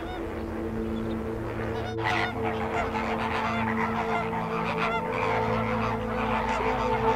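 A large flock of flamingos calling: a dense chorus of goose-like honks and gabbling that thickens about two seconds in. A steady held chord of background music runs under it.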